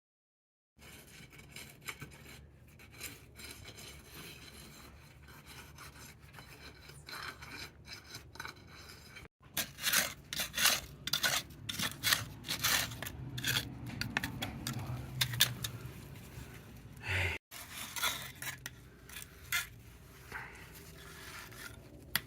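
Hand tools scraping and clinking in a rapid irregular series of sharp scrapes and knocks, busiest in the middle, over a low steady background. The sound cuts out abruptly twice.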